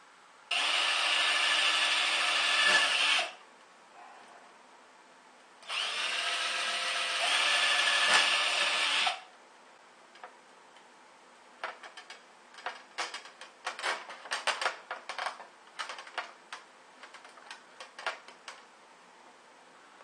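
Cordless drill running in two bursts of about three seconds each, boring small holes through a wooden board. Later comes a run of quick, irregular clicks and rattles as plastic zip ties are threaded and pulled tight.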